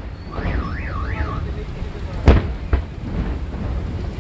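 A car alarm's warbling siren rises and falls three times in quick succession. A little over two seconds in, a firework bursts with a sharp bang, followed by a smaller crack.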